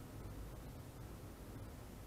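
Faint steady outdoor background noise: a low rumble with a light hiss above it, with no distinct events and no passing train.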